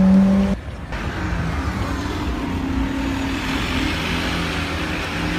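A sports car's engine note, held steady, cuts off abruptly about half a second in. Then a Porsche 918 Spyder's V8 runs at low speed as the car creeps forward, with street noise behind it.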